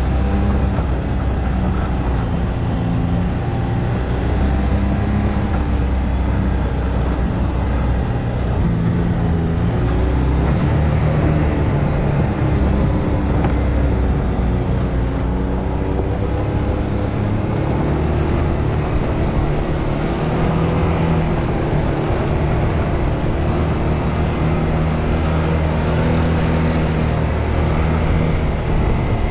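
Can-Am Maverick X3 Turbo RR side-by-side under way, its turbocharged three-cylinder engine running continuously with the pitch drifting up and down as the throttle and speed change.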